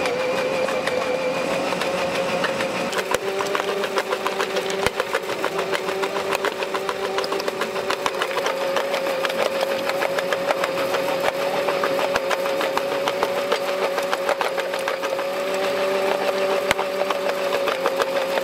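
1/16-scale RC model jaw crusher (Supershark KBM 11065) running, its motor giving a steady whine with a second, lower tone joining about three seconds in, over a dense crackle of small clicks from stone being crushed.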